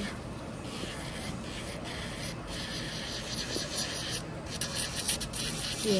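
Electric nail drill (e-file) sanding acrylic nails: the bit rasping against the acrylic, with a few brief breaks as it lifts off the nail.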